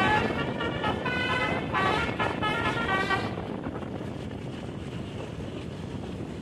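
Bus telolet multi-tone horn playing a quick melody, its notes changing several times a second, cutting off about three seconds in. After that there is only a steady rush of engine, road and wind noise.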